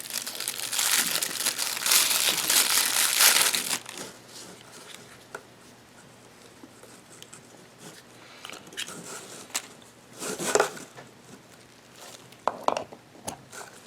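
Packaging crinkling as it is handled and opened for about four seconds, then quieter, with a few short crinkles and taps later on.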